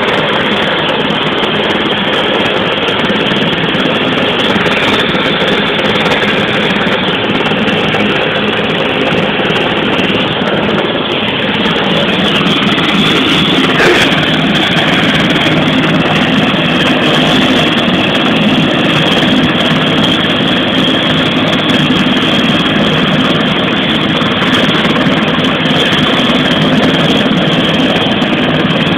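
Dragon 33, a Sécurité Civile EC145 helicopter, running steadily with its twin turbines and rotor, a steady whine over the rotor noise that grows a little louder about halfway through.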